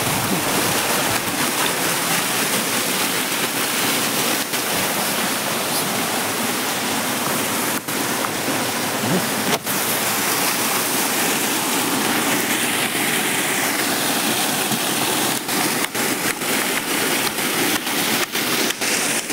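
Steady rushing of a stream flowing over rocks, with a few scattered sharp clicks on top.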